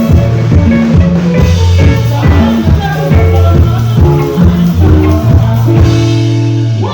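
Live band music played loud through a PA: a prominent bass guitar line with guitar notes and drums, stopping at the end.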